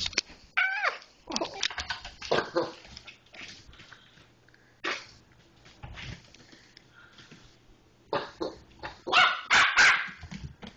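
Yorkshire terrier puppy barking and yipping in short high-pitched bursts: a quick run of barks in the first few seconds, a couple of single barks in the middle, and the loudest run near the end.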